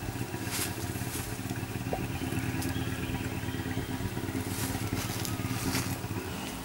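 An engine running steadily with an even hum, with a few faint clicks over it.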